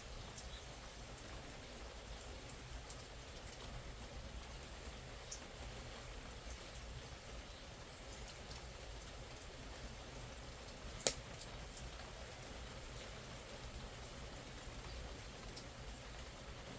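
Steady rain falling, with scattered small pops and crackles from a burning fire. One sharp, louder pop comes about eleven seconds in.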